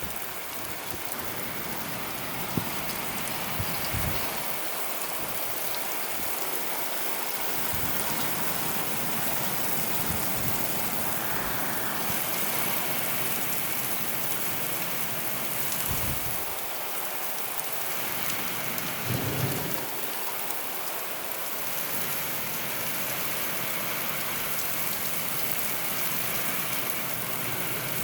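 Heavy rain pouring down in a thunderstorm, a steady hiss, with a few brief low thumps or rumbles scattered through it.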